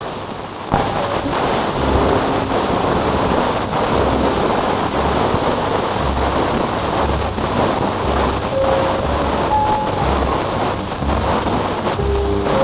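Heavy hiss and crackle from a humidity-damaged 35 mm optical film soundtrack, starting abruptly under a second in, with a regular low pulsing underneath. A few faint musical notes show through the noise near the end.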